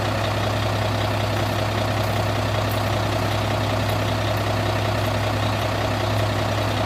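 A 1999 International 2674 refuse truck's Caterpillar C10 inline-six turbo diesel running steadily at idle, a constant low hum with no revving.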